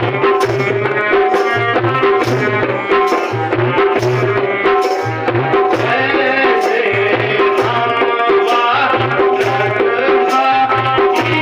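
Music with a steady, repeating drum beat under a held melody line.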